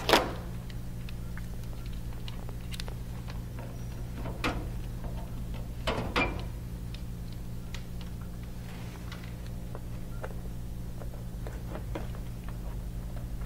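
Banana-plug patch leads clicking and knocking now and then as they are handled and plugged into the sockets of a lab trainer panel, over a steady low hum.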